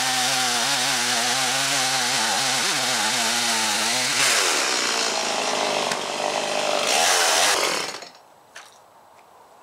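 Chainsaw at full throttle cutting through a log round on a freshly dressed, flattened bar, its engine note wavering under load. The note changes about four seconds in, surges again around seven seconds, then drops to a low idle as the throttle is released near the end.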